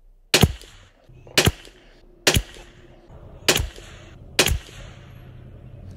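Five shots from a Sako Finnfire P94S .22 LR bolt-action rifle firing Lapua Super Long Range ammunition: sharp cracks about a second apart, each with a brief echo.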